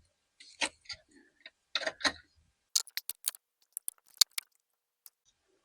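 Flat-tip screwdrivers working at a white plastic hose-connector clip on a purge valve: irregular sharp clicks and light taps, about fifteen, several in quick succession after the middle.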